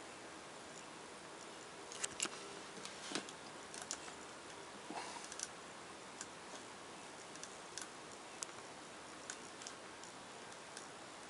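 Scattered light, sharp clicks and ticks, irregular and bunched together in the first half, over a faint steady hiss.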